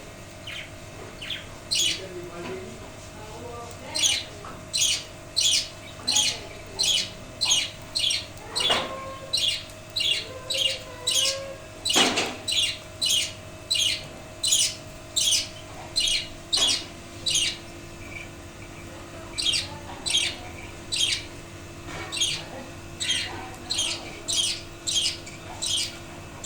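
A budgie calling over and over in short, harsh squawks, about one and a half a second, with a pause of a couple of seconds a little past halfway.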